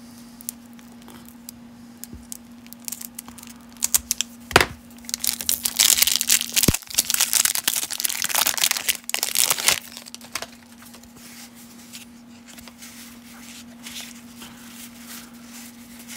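Cellophane wrapper of a 1992 Topps cello pack being torn open and crinkled, loudest from about four to ten seconds in. Quieter rustling of a stack of baseball cards follows.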